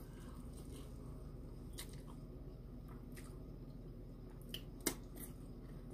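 Faint chewing of a mouthful of soft cornbread, with a few soft mouth clicks, the sharpest near the end, over a low steady hum.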